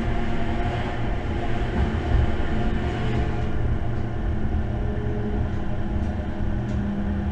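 Inside the cab of a moving electric locomotive: a steady low rumble from the wheels and running gear, with a few steady humming tones from the drive. The higher hiss eases a little about halfway through.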